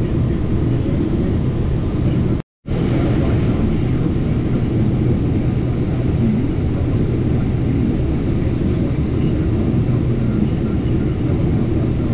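Case IH 2388 combine running steadily, heard from inside the cab as a low, even drone while it harvests corn and unloads into a grain cart. The sound cuts out for a split second about two and a half seconds in.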